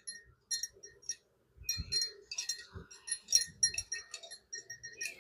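Scattered light metallic clinks, each ringing at the same few bell-like pitches, over a faint steady hum of honey bees at the open hive. A few soft handling bumps fall in the middle.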